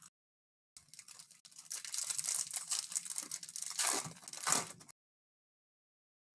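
Trading card pack wrapper being torn open and crinkled by hand, a crackling rustle for about four seconds that stops abruptly.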